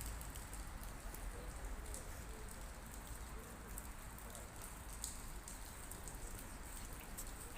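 Steady patter of falling water with many small sharp drops striking a surface, like rain.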